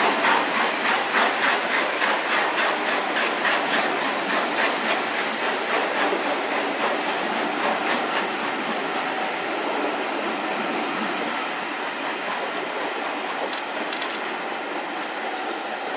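Coaches of a steam-hauled train rolling past close by, a steady rumble of wheels on rail. A regular beat of about three strokes a second runs through the first half and fades away, leaving the plain rolling noise, which eases slowly.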